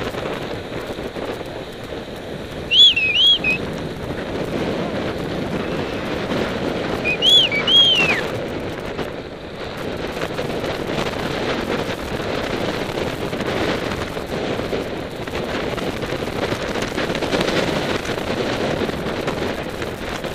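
Wind rushing over the microphone of a camera on a moving bicycle, with road and tyre noise under it. Two brief sets of high, warbling chirps break through, one about three seconds in and another about seven seconds in.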